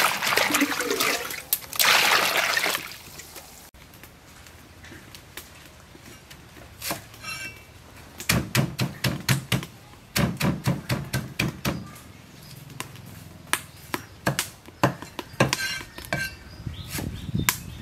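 Hands swishing cut water spinach around in a basin of water. After a few quieter seconds, a knife chops water spinach on a thick wooden cutting board in quick runs of sharp strokes.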